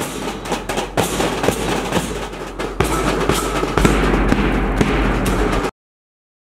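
Band drums: snare drums beaten rapidly with sticks over bass drum strokes from a felt mallet, in dense rolls and beats. The drumming cuts off abruptly near the end.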